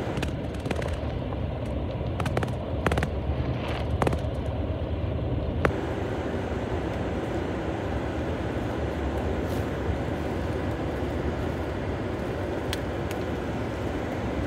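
Steady road and engine noise inside a car's cabin while driving, with a few light clicks and taps in the first six seconds.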